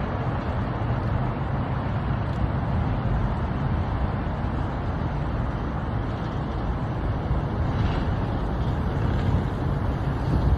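Steady city traffic noise, a continuous low rumble of vehicles with no distinct events.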